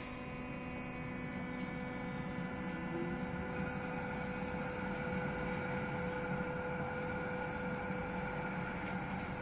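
Electric tram in motion, heard from inside the passenger car: a steady electrical hum with several held tones over a low running rumble, growing gradually louder.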